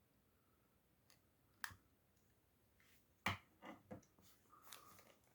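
Near silence broken by a few light clicks and taps: one about a second and a half in, then a quick cluster of them around three to four seconds.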